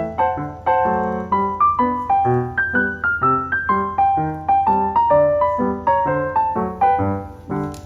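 Background piano music: a lively run of notes at a steady rhythm over a sustained bass.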